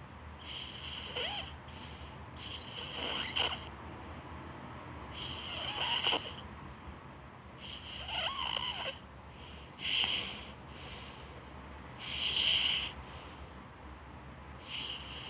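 A six-year-old child snoring in sleep, a snore on each breath about every two to three seconds.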